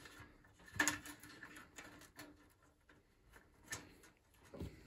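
A few faint, scattered clicks and light knocks from wires and spade connectors being handled and pulled off the terminals inside a toaster's metal end housing.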